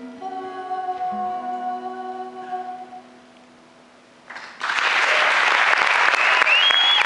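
The closing notes of an acoustic song ring out as held tones and fade away. About four and a half seconds in, an audience breaks into loud applause, with a short whistle near the end.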